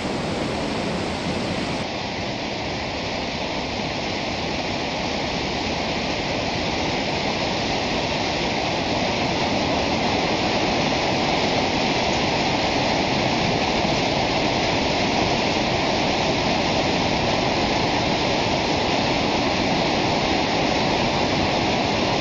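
Fast-moving floodwater of a flash-flooded river rushing steadily, growing a little louder about nine seconds in.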